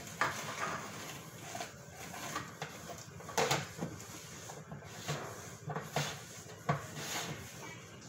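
Scattered knocks and clunks of a plastic electric-fan stand and pole being handled and wiped with a cloth, the sharpest about three and a half seconds in and a few more in the second half.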